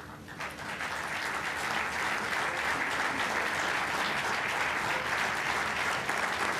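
An audience applauding, building up over the first second or two and then holding steady.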